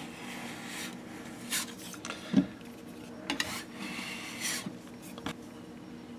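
Metal putty knife scraping and smearing modeling clay across a plywood board in several short strokes, with one dull thump about two and a half seconds in.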